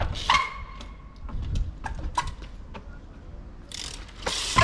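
Trials bike hopping onto and balancing on a small square plate: a few sharp knocks as the wheels land on it, the first and last ringing briefly, with a short rush of noise just before the last one.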